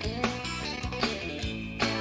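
Music with guitar over a steady drum beat.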